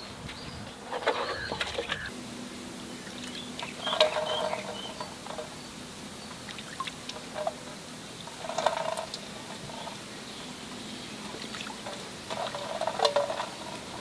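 Water splashing in four short bursts a few seconds apart.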